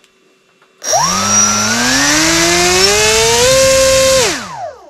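A2212 2450 kV brushless outrunner motor spinning a small propeller on a foam RC glider, run up to full throttle: a whine starts about a second in, climbs steadily in pitch, holds briefly near the top, then falls away as the propeller spins down.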